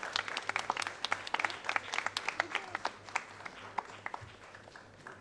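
Audience applauding: many hands clapping, the claps thinning out and fading toward the end as the applause dies away.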